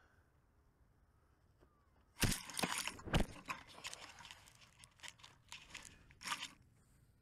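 Pine needles and twigs crackling and scraping against a small FPV quadcopter and its onboard camera as it drops out of a pine tree, with no motor sound. There is a burst of crunching about two seconds in, then scattered rustles and knocks until near the end.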